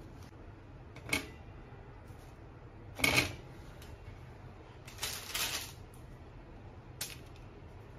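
Bagels and a metal wire cooling rack being handled on a kitchen counter: four separate light knocks and clatters, the loudest about three seconds in.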